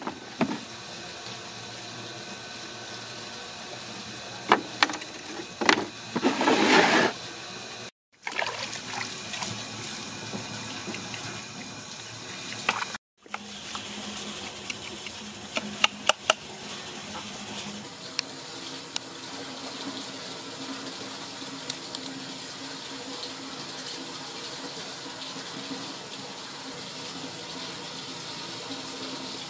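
Water running and splashing in a basin as a beef head is rinsed and handled, with scattered small knocks and a louder rush of water around six to seven seconds in. The sound breaks off briefly twice.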